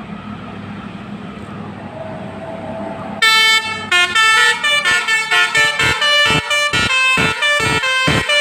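Bus engine running, then about three seconds in a multi-trumpet basuri (telolet) horn sounds a loud held chord and goes on to play a quick melody of short notes, about four a second.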